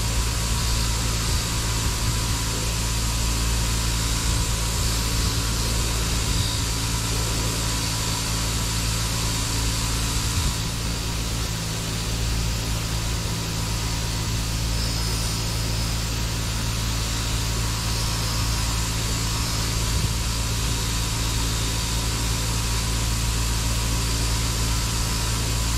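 Bench grinder running with a steady hum while a knife handle is held against its soft wheel.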